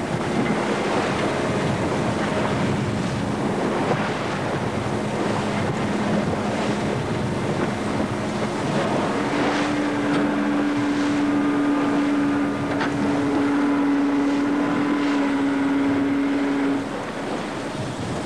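A motor drones steadily over wind buffeting the microphone and the wash of choppy sea. About nine seconds in, its pitch steps up and holds, then falls away near the end.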